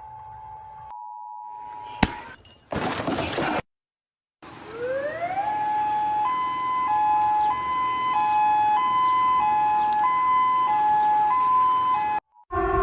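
A steady tone ends in a click and about a second of static. After a short gap, a two-tone siren winds up in pitch and then alternates between a high and a low note, each held about 0.6 s.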